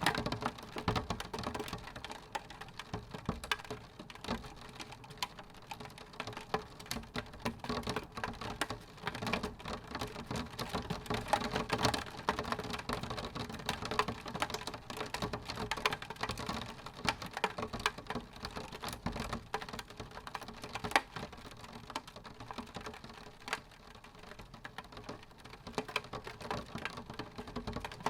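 Rain drops tapping on window glass in a dense, irregular patter of small ticks over a steady hiss of rainfall.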